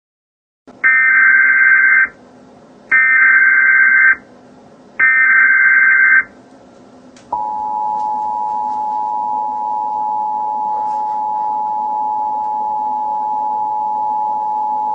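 Emergency Alert System broadcast tones: three SAME digital header data bursts, each about a second long, then the steady two-tone EAS attention signal (853 and 960 Hz), starting about seven seconds in, that announces an emergency message.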